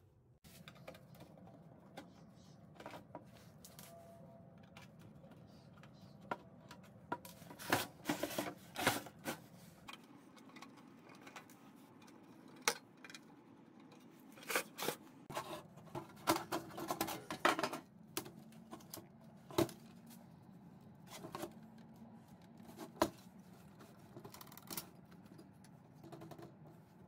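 A VCR being taken apart by hand: a screwdriver turns out the case screws and the cover is worked off. The result is irregular clicks, scrapes and rattles of the casing, with a few sharp single clicks.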